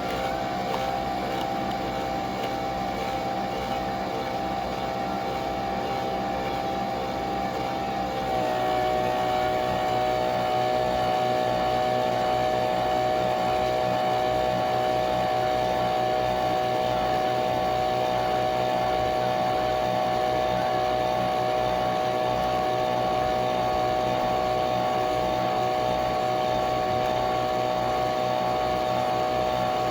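Nespresso Vertuo Pop+ coffee machine running a brew cycle: a steady motorised whine and hum that drops slightly in pitch and gets louder about eight seconds in, then holds steady.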